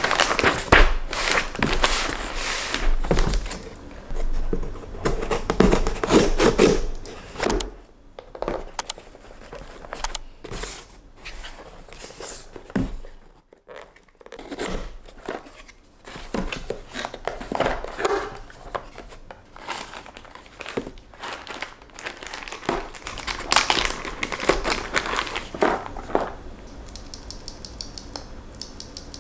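Crinkling and rustling of packaging being handled, with scattered light clicks and knocks, coming in irregular spells with short quiet gaps.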